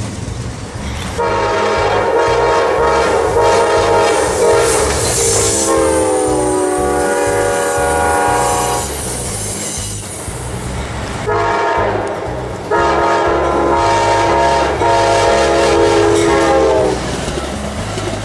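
Locomotive air horn sounding a chord of several notes in four long blasts, the second one dropping slightly in pitch. Under it is the steady low rumble and clatter of the train rolling past.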